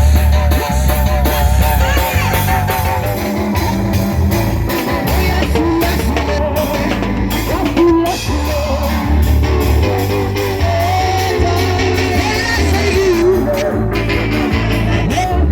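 Loud live gospel music: group singing over electric guitar, bass and drums with a steady beat.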